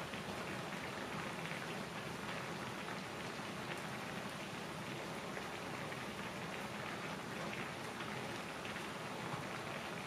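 Udon broth boiling in an aluminium foil pan on a portable gas cassette stove: a steady, dense bubbling and crackling patter.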